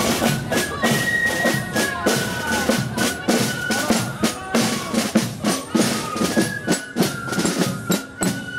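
A marching fife-and-drum corps (Tambourcorps) playing a march: transverse flutes carry a high melody over steady snare drum strokes and a bass drum beat.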